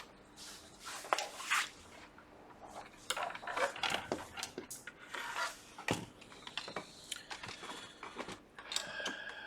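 Laptop parts being handled as a motherboard is fitted back into its case: irregular clicks, taps and light scrapes.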